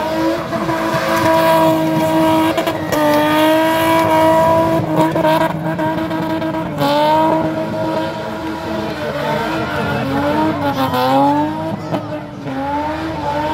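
Car engine held at high revs while the car spins doughnuts, its pitch dipping and rising several times as the throttle is worked, with the tyres spinning and squealing.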